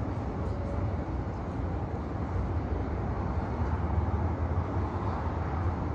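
Steady outdoor background noise: a continuous low rumble with no distinct events.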